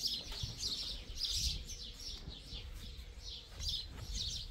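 Small birds chirping: short high chirps in quick clusters, repeating throughout, over a low background rumble.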